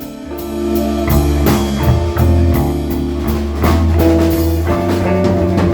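Blues band playing an instrumental passage between sung lines: guitar, bass and drum kit at a slow, steady beat.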